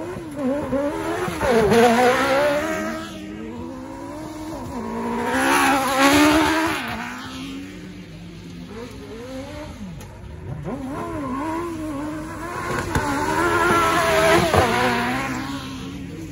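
Autocross cars racing on a dirt track, their engines revving up and easing off through the corners. The engines swell loudest as cars pass close, about two, six and fourteen seconds in.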